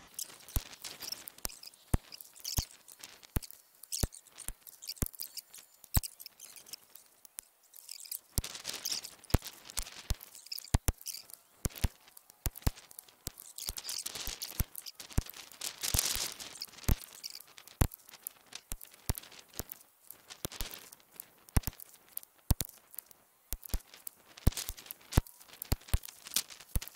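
Crinkling of a plastic bag and many small irregular clicks as cartridges are handled at the shooting bench, with a longer stretch of crinkling about two-thirds of the way through.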